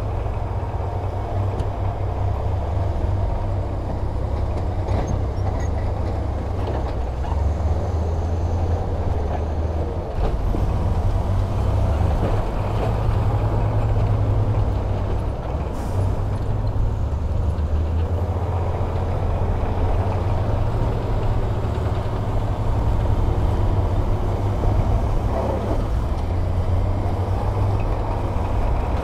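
Diesel engine of heavy earthmoving machinery running steadily with a deep low rumble. It gets a little louder from about ten seconds in as the machine works.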